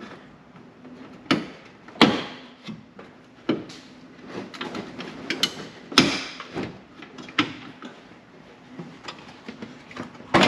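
Plastic front bumper cover of a 2016+ Chevrolet Camaro being pulled free by hand: a series of sharp clicks and knocks as its retaining clips pop loose and the plastic shifts against the body, the loudest about two seconds in and again about six seconds in.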